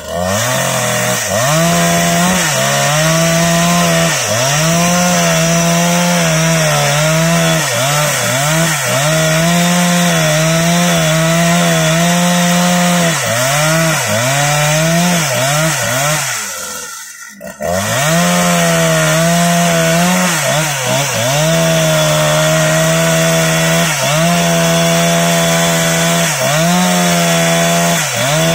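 Husqvarna 365 Special two-stroke chainsaw running at full throttle while rip-cutting lengthwise through a teak log. The engine pitch dips again and again as the chain bogs under load and then recovers. The sound drops out briefly about seventeen seconds in, then resumes.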